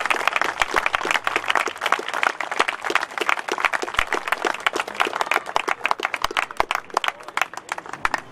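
Small crowd applauding, the clapping thinning out and fading near the end.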